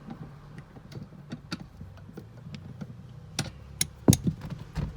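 Wrench tightening a car seat's mounting bolts: a run of irregular sharp metal clicks, with a few louder knocks in the last second and a half.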